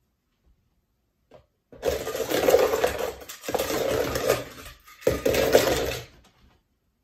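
Die-cast toy cars clattering against each other and the bowl as they are stirred around by hand in a mixing bowl, in three bouts with brief breaks between them.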